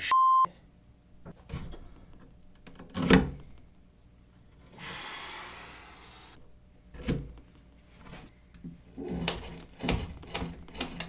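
A short beep right at the start, then knocks and rasping from a knife cutting test: a sharp knock about three seconds in, a rasping cut lasting about a second and a half near the middle, another knock, and a run of quick clicks and knocks near the end.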